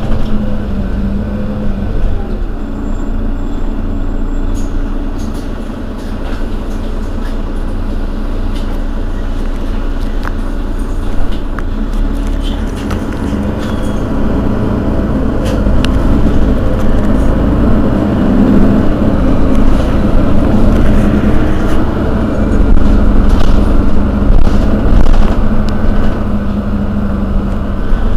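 Mercedes-Benz Citaro Facelift city bus running under way with a steady diesel engine hum, growing louder in the second half and swelling about two-thirds of the way through.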